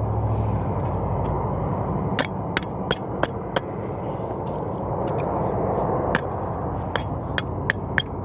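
Sharp, light tapping knocks of a tool on metal parts: a quick run of five about two seconds in, then scattered single taps, over a steady rushing background noise.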